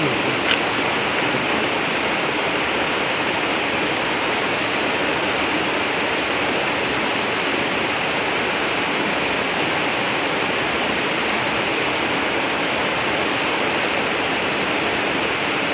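Steady rush of river water flowing beneath a bridge, with a short tick about half a second in.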